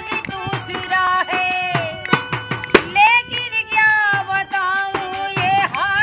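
A woman singing a Hindi film song in a folk style, over the held reedy chords of a harmonium and steady beats on a hand-held frame drum. The drum marks a regular rhythm under the sung phrases.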